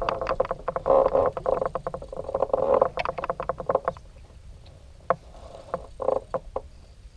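Frogs croaking in rapid trains of short, pulsed calls. They are dense for the first few seconds, then thin out to a few scattered calls.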